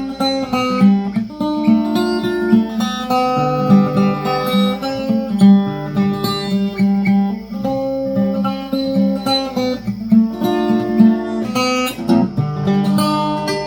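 Instrumental break of a folk song in the key of C: acoustic guitar strummed and picked, with held melody notes over the chords and no singing.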